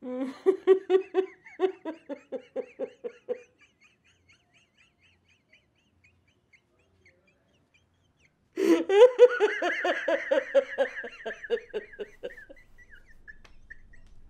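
Elderly man sobbing, stifled into a cloth pressed to his mouth: a run of short catching sobs, about three a second, then after several seconds of quiet a louder, longer bout of sobbing with a drawn-out cry that trails off.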